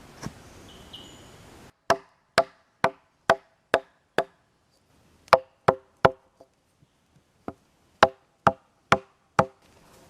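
Sharp, repeated blows of a tool striking wood, each with a short ringing note. They come about two a second in three runs: six blows, then three, then four.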